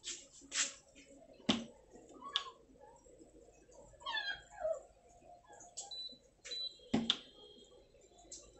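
Induction cooktop's control panel beeping after its switch repair: two short high beeps and then a longer tone near the end, among clicks and knocks from handling the unit, the loudest about 7 s in. About halfway through, a puppy gives a brief falling whimper.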